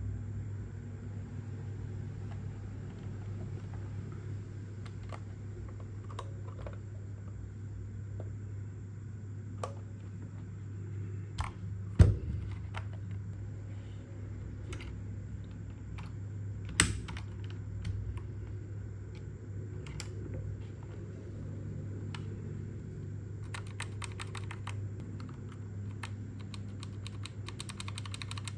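Keystrokes on a JEDEL KL150 mechanical keyboard: scattered single key presses, with two louder clacks about twelve and seventeen seconds in, then fast runs of typing near the end. A steady low hum lies underneath.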